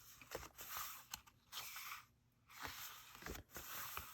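Paper pages of a book being turned one after another, a soft swish about once a second with light taps of paper.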